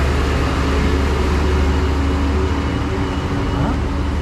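Street traffic: the low, steady rumble of vehicle engines running close by.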